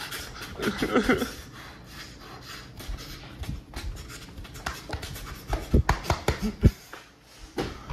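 Knocks, thumps and rubbing of close-up movement and a handheld phone being jostled, with a short vocal sound about a second in and a cluster of heavier thumps near the six-second mark.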